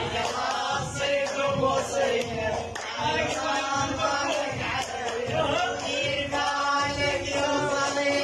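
Iraqi mawwal music: a wavering, ornamented melody over a steady held drone, with percussion beating underneath.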